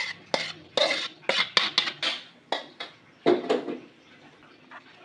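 Dishes and cutlery clattering as they are handled: a quick run of about a dozen knocks and clinks over roughly four seconds, then it stops.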